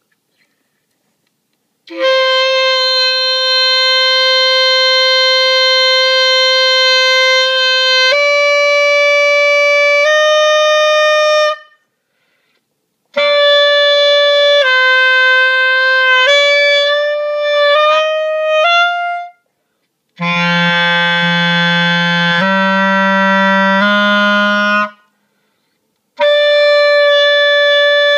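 Clarinet playing long held notes in four phrases with short silences between. The first is one long note that steps up once, the second moves through several notes, the third drops to lower notes, and the last is a single held note.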